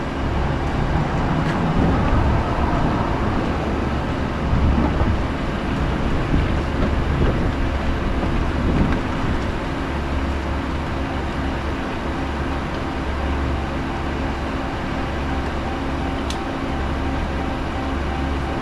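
Pickup truck engine idling steadily, a low even hum, with a single small click about 16 seconds in.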